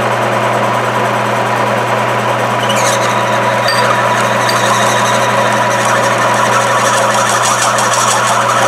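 Milling machine running with a steady hum as its cutter machines out a half-inch hole in a hinge knuckle. A rapid, even higher buzz joins about six seconds in.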